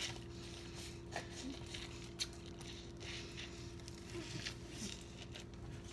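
Plastic bags holding homemade jelly crinkling and clicking as they are handled and bitten, in short scattered bits over a steady faint hum.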